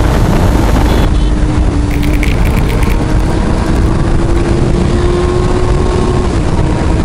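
Kawasaki Z1000SX's one-litre inline-four engine running at road speed under heavy wind buffeting on the microphone. Its note rises slowly and drops a little about six seconds in.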